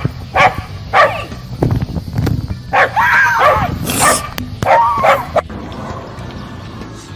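A dog barking: quick, short barks about twice a second at first, then two longer drawn-out calls a few seconds later.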